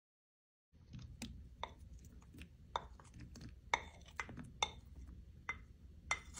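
Kitchen utensils knocking and clinking: about ten irregular sharp clicks and knocks, starting under a second in, over a low hum.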